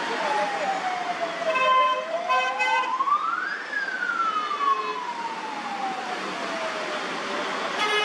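Ambulance siren wailing slowly, one long fall, a rise and another long fall, over steady road traffic noise. Several short car horn honks sound about one and a half to three seconds in, with another horn about four to five seconds in.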